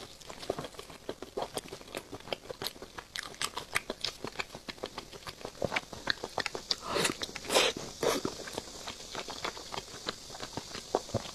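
Close-miked mouth sounds of a person biting and chewing a sauced chicken drumstick: a dense run of small wet clicks and smacks, with a few louder bites about two thirds of the way in.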